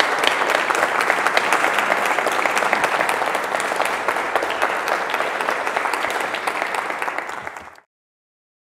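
Audience applauding: dense, steady clapping that tails off and is cut off abruptly near the end.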